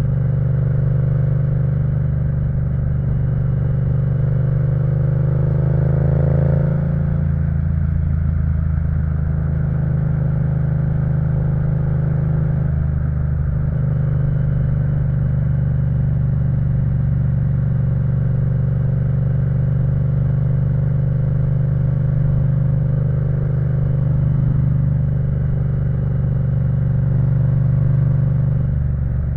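Yamaha MT-07's 689 cc parallel-twin engine, fitted with an Akrapovic full exhaust system, heard from the saddle while riding. The revs climb for the first six seconds or so, drop sharply, then the engine holds a fairly steady pitch for the rest of the time.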